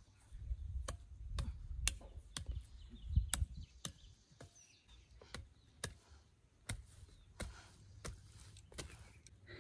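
Short-handled digging fork striking and loosening hard, compacted soil, with dull chopping strokes about two a second that become a little more spaced in the second half.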